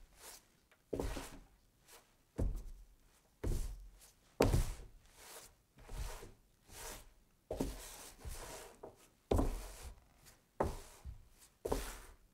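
Wooden rolling pin worked back and forth over floured bread dough on a wooden board: about a dozen short strokes, roughly one a second, each with a dull knock.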